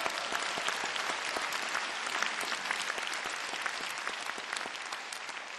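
Audience applauding, a dense steady clapping that starts to die down near the end.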